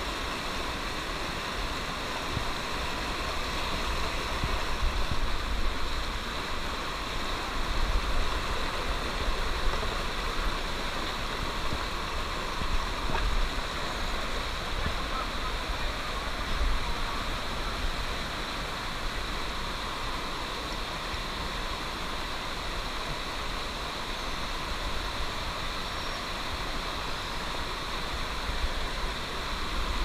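Mountain stream rushing and splashing over boulders in small cascades, a steady water noise, with occasional low rumbles.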